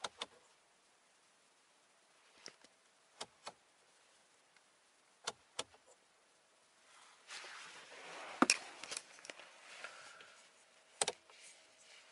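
Switches in a Volkswagen Golf's cabin clicking, mostly in quick press-and-release pairs. About seven seconds in comes a longer, louder patch of rustling and knocks.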